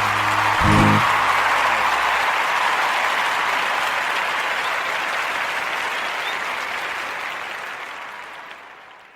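Audience applause after a song ends, with a brief low thump about a second in; the clapping fades away near the end.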